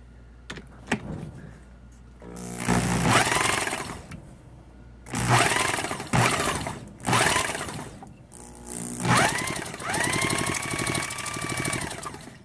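Cordless drill turning over a Yerf Dog go-kart engine by its crankshaft through a socket adapter, as for a compression test. It runs in about six short bursts, the whine rising quickly in pitch at each start, the last burst the longest.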